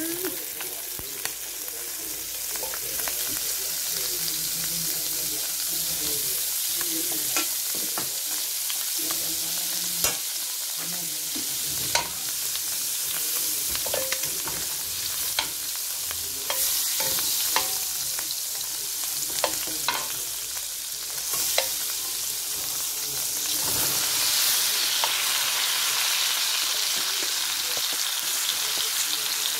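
Garlic butter sizzling and frying in a hot stainless steel pan, with a metal spoon clicking and scraping against the pan as it is spread. About 24 seconds in the sizzle gets louder, with sliced mushrooms now frying in the butter.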